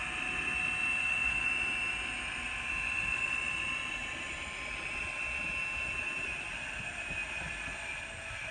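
N scale model locomotive's DCC sound decoder playing a GP38-2 diesel engine sound through its tiny speaker as the model runs, a steady thin running sound with a high whine.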